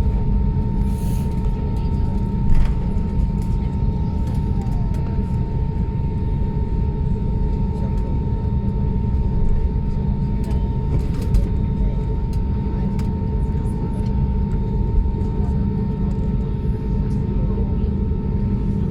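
Steady airliner cabin noise: a continuous low rumble of engines and airflow, with a thin steady tone throughout and a few small clicks.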